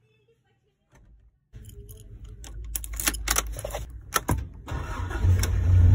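Car keys jingling and clicking on their ring as the key goes into the ignition and is turned, after a second and a half of near silence. About five seconds in the car's engine starts, with a loud low run.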